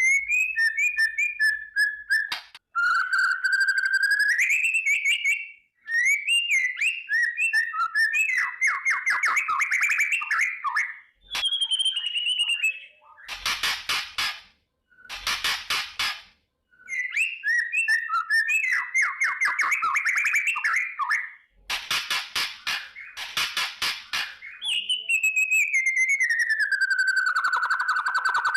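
White-rumped shama (murai batu) singing in loud phrases with short gaps between them: clear whistled notes and upward glides, fast trills, and dense rattling stretches, the 'kretekan' crackling call. Near the end comes one long falling whistle.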